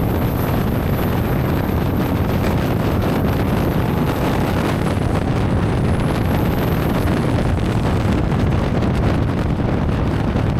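Turbo diesel longtail boat engine running steadily under way, mixed with wind on the microphone and water rushing past the hull. A thin high whine wavers in pitch over the top.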